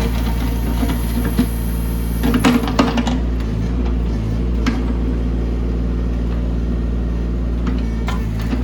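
Mini excavator engine running steadily, with a few sharp knocks and clanks about two and a half seconds in.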